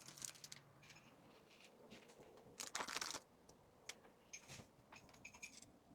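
Faint rustling and light clicks of small items and packaging being handled, with a brief louder rustle about three seconds in.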